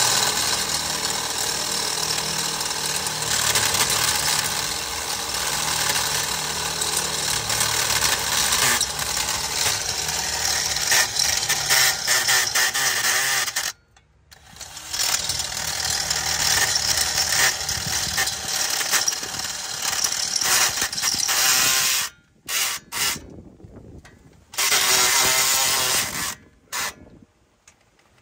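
Power tool running in long stretches while working on a car's front brake caliper mounting. It cuts off abruptly about 14 seconds in, and near the end it runs in short bursts with sudden stops.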